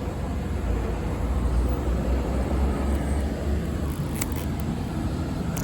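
Car driving along a road with a steady low road rumble, and two brief sharp ticks about four seconds in and near the end.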